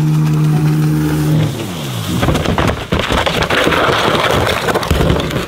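Jet ski engine running at a steady high note, then dropping in pitch about a second and a half in as the throttle comes off. A loud, rough splashing and grinding noise follows as the hull runs up out of the water onto the boat ramp, and it stops abruptly at the end.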